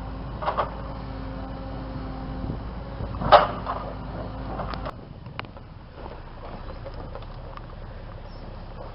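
A vehicle's steady low hum with a few knocks and one loud clunk, the hum stopping about five seconds in.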